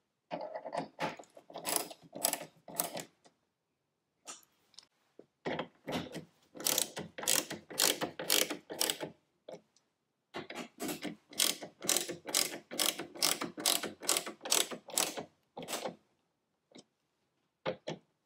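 Hand ratchet clicking as it is swung back and forth to drive screws, in three long runs of quick, even pawl clicks with short pauses between them.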